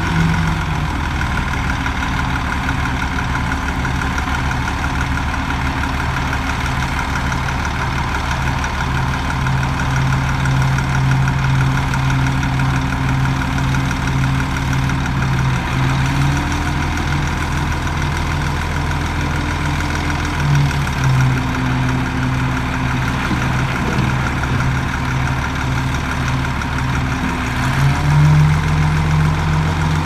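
Heavy diesel engines of a dump truck and crawler bulldozer running. The engine note drops about a second in, shifts up and down around the middle, and rises again near the end as the dump truck's bed tips up.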